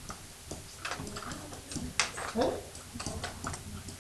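Pen stylus tapping and scratching on an interactive whiteboard while shading in a drawing: irregular quick ticks and taps, with one louder click about two seconds in.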